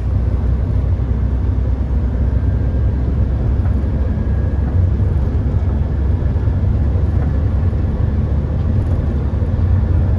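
Steady low rumble of a van travelling at road speed: tyre and wind noise heard from inside the cabin.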